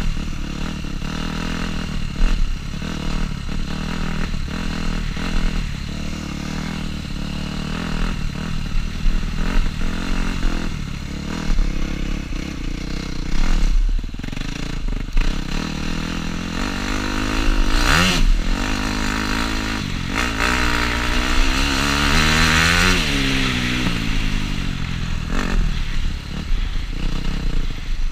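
Dirt bike engine heard from the rider's helmet, revving up and down as the bike is ridden over rough dirt, with short knocks and rattles from the bumps. About two-thirds of the way in the revs climb steeply, hold high for a few seconds, then fall away.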